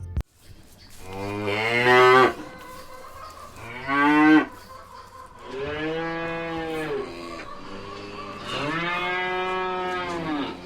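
Cow mooing four times: long lowing calls, the first rising in pitch and the last two held longer.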